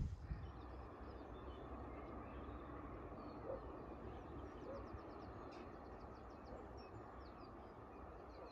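Faint countryside ambience: a steady low background hiss with small birds chirping now and then in the distance.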